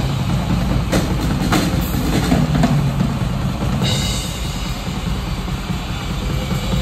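Live drum solo on a clear acrylic double-bass drum kit, heard at close range: a fast, continuous bass-drum pattern under sharp snare hits and cymbals, with a bright cymbal wash from about four seconds in.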